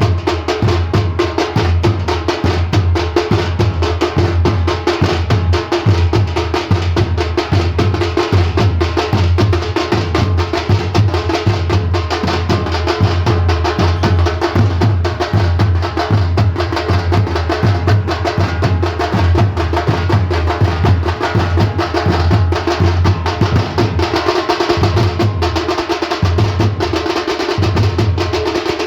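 Fast, continuous drumming: a rapid, even stream of drum strokes with a steady low booming underneath.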